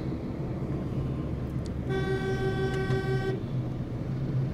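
A vehicle horn sounds once, held for about a second and a half, about two seconds in, over the steady hum of the car's engine and road noise inside the cabin.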